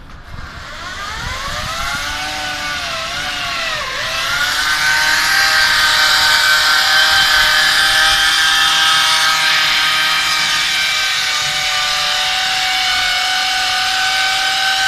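Core drill with a diamond core bit cutting into a wall: the motor whines up in pitch, dips briefly about four seconds in as it bites, then holds a steady high whine over loud gritty cutting noise.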